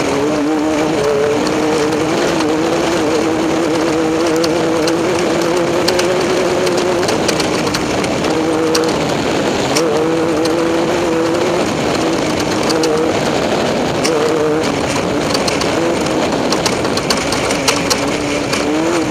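Off-road race vehicle's engine running hard at a fairly steady pitch, dipping briefly a few times as the throttle lifts and climbing again near the end, over a constant rushing noise with scattered sharp ticks.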